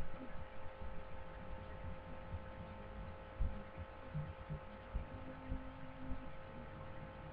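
Steady electrical hum made of several steady tones, with faint, irregular low thumps scattered through it.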